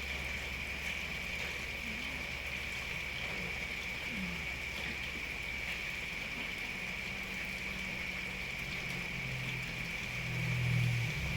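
Steady rain with a constant high hiss, and a cat snoring as a low rumble that builds from about halfway and grows loud near the end.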